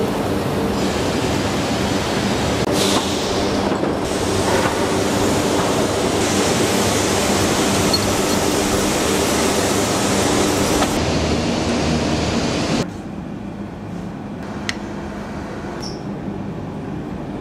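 Steady, loud factory machinery noise with a low hum. About thirteen seconds in it drops abruptly to a quieter machine hum with a few faint clicks.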